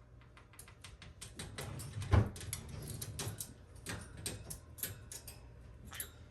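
A run of quick, irregular clicks and taps, with one louder knock about two seconds in.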